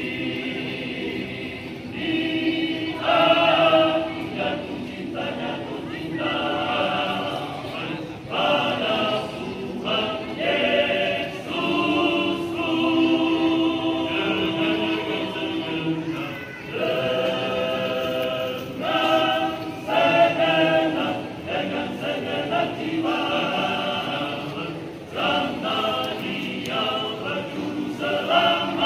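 A masamper choir singing a spiritual hymn in several-part harmony, unaccompanied. It comes in held phrases of one to three seconds, with short breaths between them.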